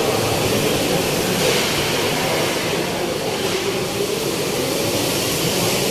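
Strong typhoon wind blowing in a steady rush, swelling in gusts about one and a half and three and a half seconds in.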